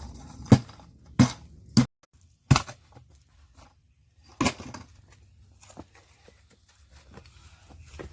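Stones knocking together as rocks are moved and set in a stream bed: five sharp knocks in the first half, then a few fainter ones.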